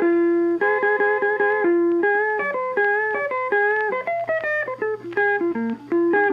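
Background music: a plucked guitar melody of quick repeated notes.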